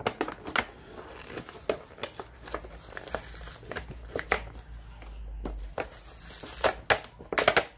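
Packaging crinkling and rustling as a cake box is opened, with scattered sharp clicks and taps.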